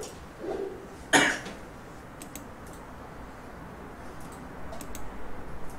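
A person coughs once, sharply and briefly, about a second in, against quiet room tone. A few faint clicks follow later.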